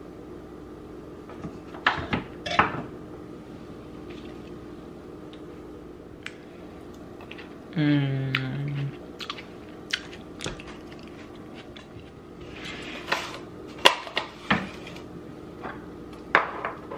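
Kitchen prep sounds: a few sharp clicks of a knife and utensils on a wooden cutting board and countertop, then a clatter of dishes and containers being handled near the end. About halfway through comes a short, loud closed-mouth "mmm" hum of approval.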